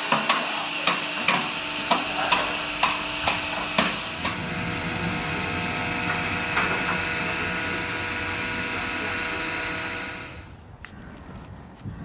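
Steam-hauled passenger train running past: sharp, evenly spaced beats about twice a second over a steady rush, the beats fading after about four seconds. The rush carries on and then cuts off suddenly about ten seconds in.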